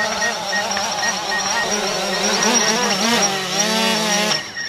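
Small camera drone's propellers buzzing under load, the pitch wavering up and down as the motors strain to carry a sign hung beneath it; the buzz cuts off suddenly near the end. The drone is struggling with the sign's weight.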